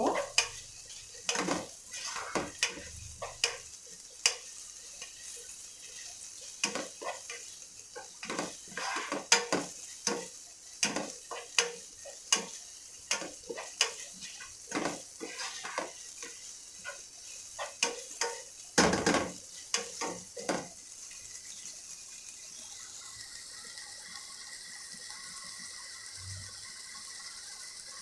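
Plastic spatula scraping and knocking against a nonstick pot as chopped onions sautéing in oil are stirred, over a low sizzle. The stirring stops about 21 seconds in, leaving a steady sizzling hiss.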